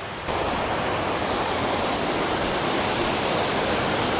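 Waterfall: a steady rush of falling water that cuts in abruptly just after the start and holds steady.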